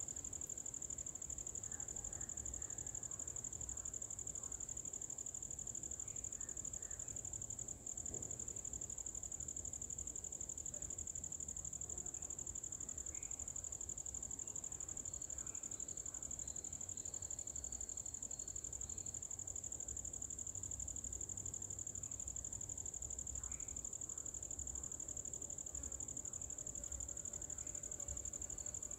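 Quiet garden ambience: a steady high-pitched insect drone runs throughout, with a few faint short chirps and a low rumble underneath.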